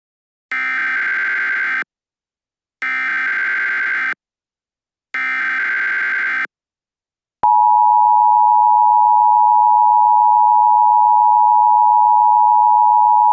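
Emergency Alert System SAME header: three buzzy digital data bursts, each about a second long with a second's gap between them, followed about seven seconds in by the loud, steady EAS two-tone attention signal, which signals that an emergency alert broadcast is starting.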